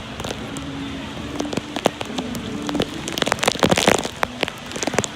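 Heavy typhoon rain, with many sharp drops striking close to the microphone; the drops come thickest about three to four seconds in.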